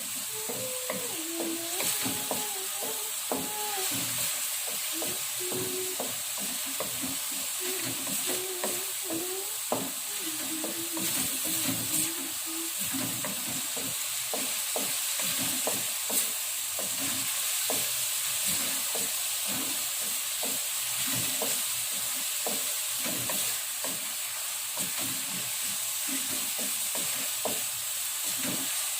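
Spice paste frying in hot oil in a pan, sizzling steadily while a spatula stirs and scrapes it in frequent short clicks. The paste is being cooked down until dry and fragrant.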